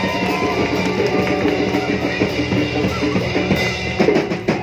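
Live ska band playing, with guitar over a drum kit; in the last second the drums come to the front with a run of sharp, evenly spaced hits.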